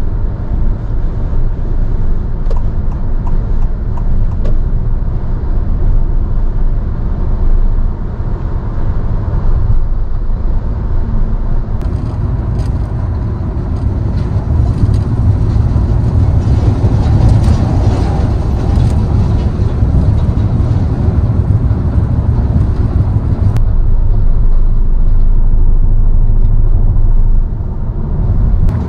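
Road noise inside a Honda Step WGN Spada e:HEV minivan cruising on an expressway: a steady low tyre and road rumble. It grows louder in the middle while the car crosses deliberately stepped pavement.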